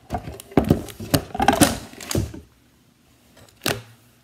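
Camera handling noise: clicks, knocks and scrapes on the microphone as the camera is moved and set against a table, propped on a candle that cannot hold it up. A close run of clicks over the first two seconds, a short lull, then one sharp knock near the end.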